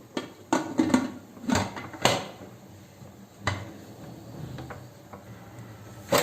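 Pressure cooker lid being put on and locked: a quick run of metal knocks and scrapes in the first two seconds, another knock about three and a half seconds in, and a sharper clunk near the end.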